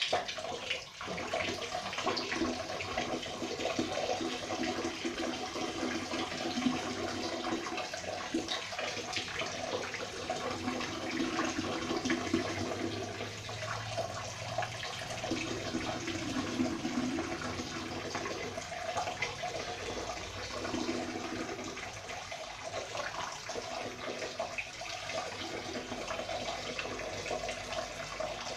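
A stream of urine splashing into the water of a toilet bowl. It starts abruptly and runs as a steady splashing trickle.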